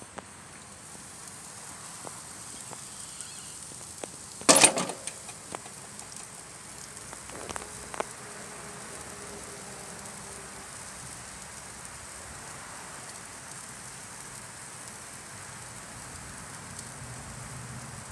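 Bone-in steak sizzling steadily on the grate over hot charcoal. About four and a half seconds in there is a loud metal clatter as the grill lid is opened, and a few lighter clicks follow near eight seconds.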